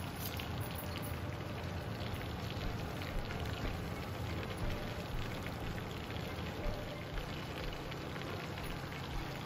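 Crinkle-cut fries deep-frying in hot oil in a small saucepan: a steady sizzling crackle of bubbling oil.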